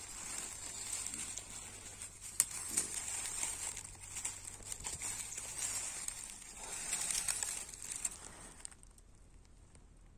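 Dry pine-needle and leaf litter crackling and rustling under a hand as it works around mushrooms on the forest floor, with a few sharp snaps of twigs or needles; the rustling fades near the end.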